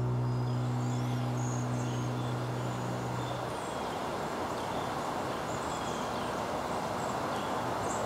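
The last held piano notes ring out and stop about three and a half seconds in. A steady outdoor background rush then remains, with scattered short, high bird calls throughout.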